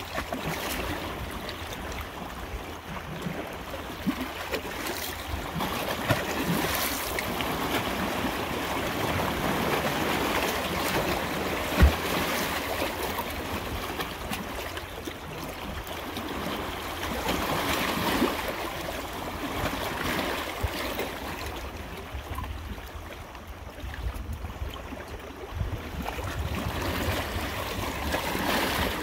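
Flowing water, a steady noisy rush that swells and eases, with a low rumble underneath and a single thump about twelve seconds in.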